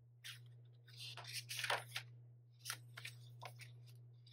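Paper pages of a handmade junk journal being turned and pressed flat by hand, rustling in a few soft bursts, over a steady low hum.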